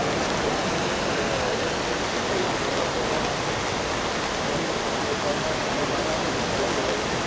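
Whitewater rapids rushing over rocks in a steady, unbroken rush.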